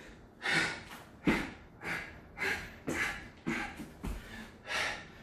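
A man panting hard through a set of burpees: about nine sharp, noisy breaths, a little under two a second. Two dull thuds about a second in and near the end are hands or feet landing on a rubber floor mat.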